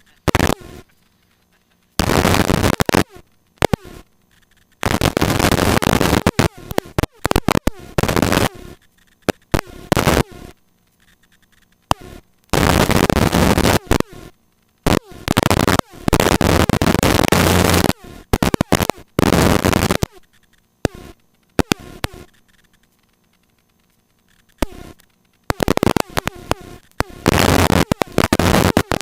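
Blocks of rough helicopter cockpit noise heard through the headset intercom, switching on and off abruptly as the voice-activated mic opens and closes, with near silence between the bursts.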